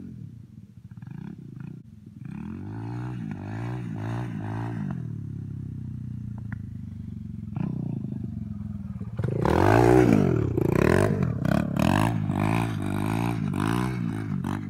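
Dirt bike engine revving up and down as it is ridden around, its pitch rising and falling with each twist of the throttle. It is loudest when the bike passes close, about two-thirds of the way in.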